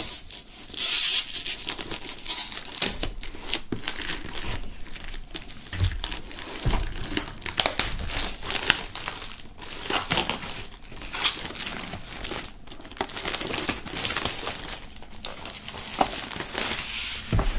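Clear plastic shrink-wrap film being slit with a knife and peeled off a box, crinkling and tearing in an irregular run of rustles and rips.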